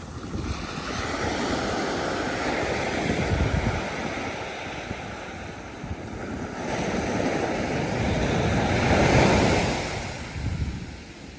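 Sea surf breaking and washing up the beach in two long surges, the second the louder.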